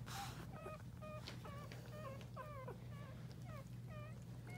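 Newborn Portuguese Water Dog puppies squeaking while they nurse: a quick, faint string of short, thin, high cries, about three or four a second.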